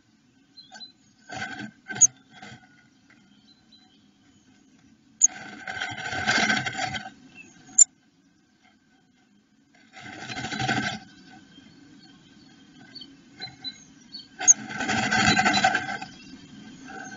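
Blue tit scrabbling and shuffling in a moss nest inside a wooden nestbox, working the nest cup. Three bursts of scratchy rustling, each one to two seconds long, with a few short ticks before them and sharp clicks on the wood.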